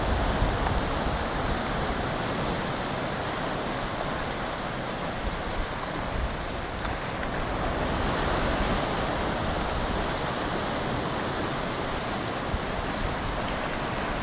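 Steady rush of ocean surf washing over a rocky shore, with wind buffeting the microphone in an uneven low rumble.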